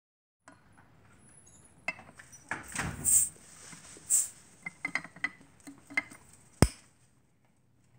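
Bottle cap being levered against a hand-forged railroad-spike bottle opener: scattered metal clicks and scraping, two short hisses, and one sharp click near the end as the cap comes off.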